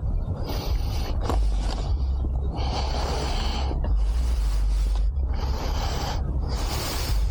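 Rider's breathing inside a motorcycle helmet, caught close by the helmet microphone as repeated hissing breaths about every second or so, over a steady low rumble.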